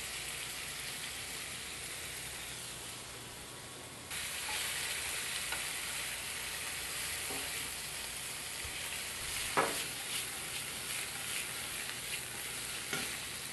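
Chicken strips sizzling steadily in a hot oiled frying pan, the sizzle stepping up louder about four seconds in. A few short clicks of metal tongs against the pan as the strips are turned.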